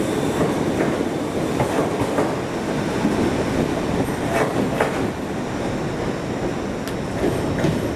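Passenger train rolling through a station, a steady rumble of wheels on rail with a few sharp clicks in the second half.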